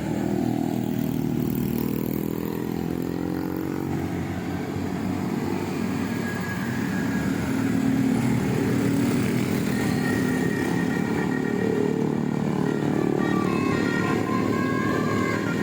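Road traffic: vehicle engines running close by throughout, one engine note falling in pitch over the first few seconds as it goes past.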